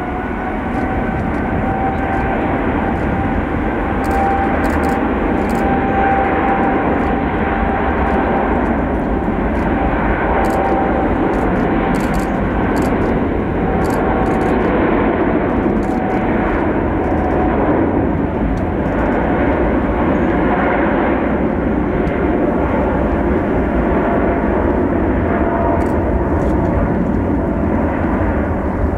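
Jet engines of a wide-body cargo plane running at high power: a loud, steady rumble with a held whining tone over it.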